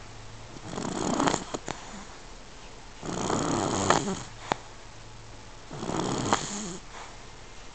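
Sleeping puppy snoring: three long, noisy breaths about two and a half seconds apart, with a few short sharp clicks among them.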